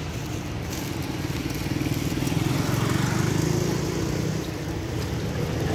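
Small motorcycle engine running close by, a steady buzz that grows a little louder over the first couple of seconds.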